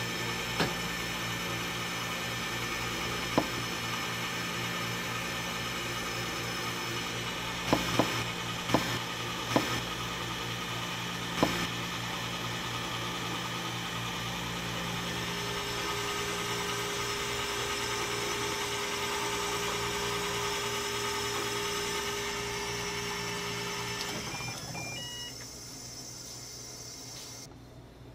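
Electric snowflake-ice (bingsu) machine running steadily, its motor humming with a few light knocks, as it shaves a frozen block into fine snow. The hum fades about 24 seconds in, followed by a few short beeps.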